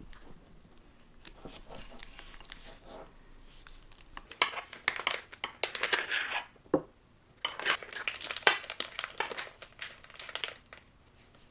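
Crisp crinkling and crackling in two dense runs, each a couple of seconds long, with lighter crackles before them and a single soft knock between them.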